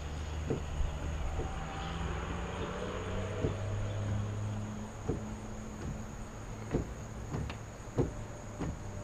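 Steady high insect drone, with a low hum beneath it that shifts pitch a couple of times and a scattering of soft clicks.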